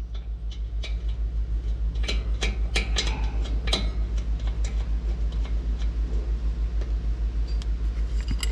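Hand tools and a bolt clinking and clicking against metal, several sharp clinks bunched about two to four seconds in, over a steady low throb that pulses about eight times a second.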